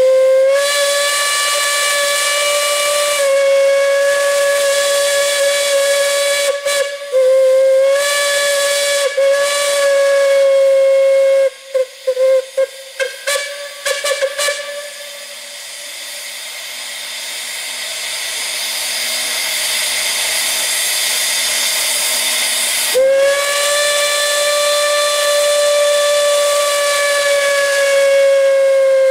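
A steam whistle blowing one long, steady note, then a string of short, quick toots about halfway through. Then comes several seconds of steam hissing with no note, growing louder, before the whistle sounds again in a long blast near the end.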